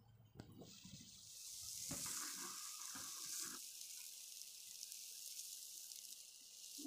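Aquarium water draining through a siphon hose into a bucket: a steady, faint hiss that sets in about a second in and stops near the end, with a few light knocks from handling the hose.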